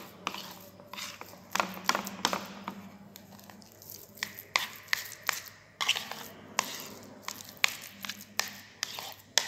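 Metal spoon mixing mashed potato with cream and egg yolk in a bowl: irregular scrapes and taps of the spoon against the bowl as the mash is stirred.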